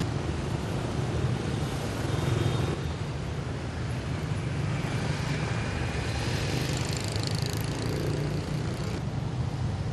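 Steady road traffic noise: the running engines and tyres of many motor vehicles on a busy city street, a continuous rumble with no single vehicle standing out.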